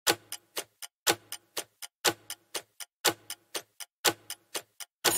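Countdown timer sound effect: a clock ticking about four times a second, the first tick of each second louder, for five seconds. A ringing bell starts right at the end to signal that time is up.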